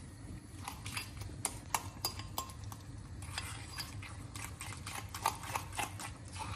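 Metal fork stirring a thick egg-yolk and cheese cream, thinned with a little starchy pasta water, in a small ceramic bowl; the tines tap and scrape against the bowl in light, irregular clicks.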